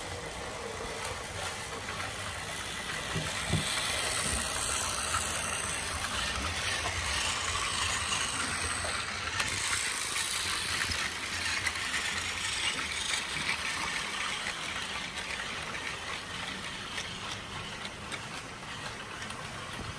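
Battery-powered plastic toy trains running on plastic track, their small geared motors whirring and wheels rattling over the track joints. The sound grows louder a few seconds in as the trains pass close, then eases a little near the end.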